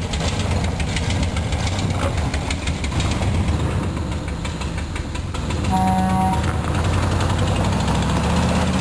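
Engine of a square-body Chevy pickup running off-screen with a steady rumble and fast knocking, with a short horn honk about six seconds in; the engine is louder after that.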